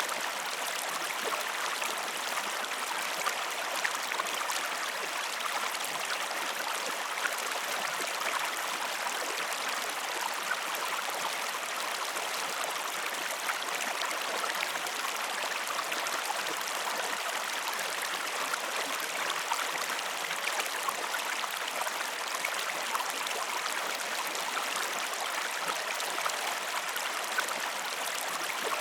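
Steady running water of a stream, a constant rush with fine splashing and trickling throughout.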